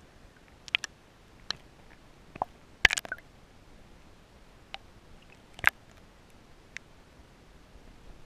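Sparse, sharp clicks and knocks at irregular intervals, with a small cluster about three seconds in, heard underwater through an action camera's waterproof housing over a quiet, muffled water background.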